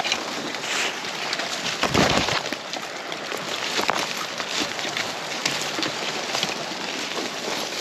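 Footsteps crunching and crackling through dry leaf litter, with a louder low thump about two seconds in.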